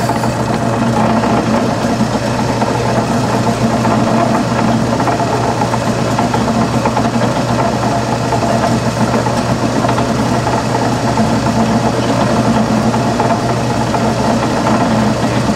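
Wells Model 1200 horizontal band saw cutting a metal bar, running dry at slow blade speed with a low feed rate: a steady drive hum with the blade sawing continuously through the stock.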